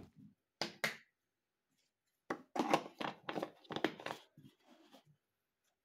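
Hands handling a tomato sauce bottle and its packaging: a click and two light knocks, then about two seconds of crackly rustling and squeezing that fades out near the end.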